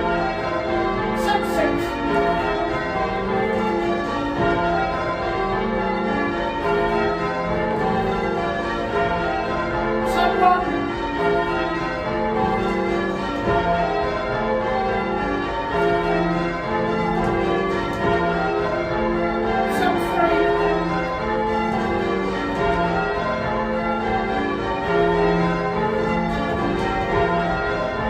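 A ring of eight church bells, mostly Gillett & Johnston with a tenor in F, being change-rung: a continuous, even stream of overlapping bell strikes.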